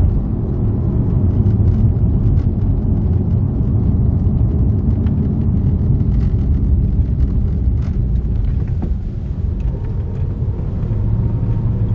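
Lexus LS400's 1UZ-FE V8 with its stock mufflers still on, heard from inside the cabin while driving slowly: a steady low rumble of engine and road noise that eases slightly about nine seconds in before picking up again.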